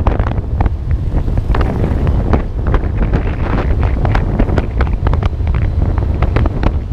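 Heavy wind buffeting on a GoPro Hero4's microphone while riding a motorcycle: a constant low rumble broken by frequent crackling pops.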